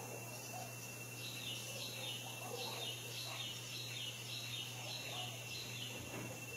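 Forest birdsong: one bird repeats a short, high, falling note about twice a second for several seconds, with softer, lower chirps from other birds and a steady thin high tone behind.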